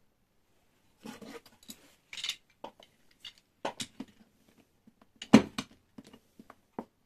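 Steel F-clamp being handled and set over a wooden workpiece: a run of irregular clicks, scrapes and metal-on-wood knocks, with one sharper knock about five seconds in.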